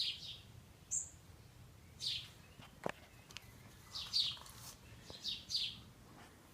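Scattered short, high bird chirps, about half a dozen spread through the stretch, with one sharp click about three seconds in.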